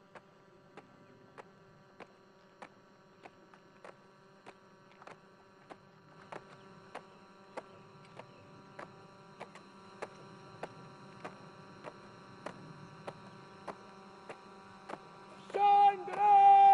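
A steady marching beat of sharp taps, about one every 0.6 seconds, over a faint hum as the colour party marches. About fifteen and a half seconds in, a band strikes up loudly with held notes.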